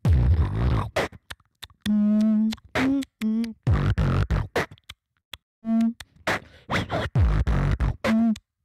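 Solo vocal beatboxing: short hummed bass notes alternate with deep, noisy bass and kick sounds and sharp clicks, in phrases broken by brief silences.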